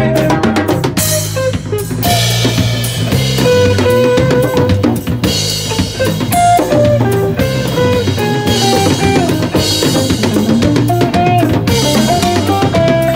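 Live band playing an instrumental groove, with the drum kit's bass drum and snare to the fore over a bass line and guitar.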